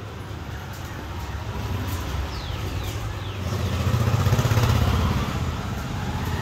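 A motorbike engine passing close by, rising to its loudest about four to five seconds in and then easing off.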